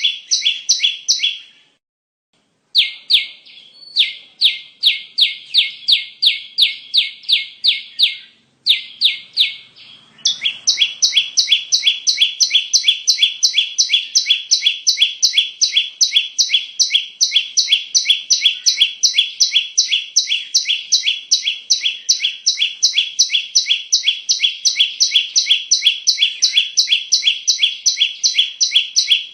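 Perenjak (prinia) call played as a bird lure: a long run of sharp, evenly repeated chip notes. It breaks off completely about two seconds in and pauses briefly near eight seconds, then goes on faster and without a break, about four notes a second.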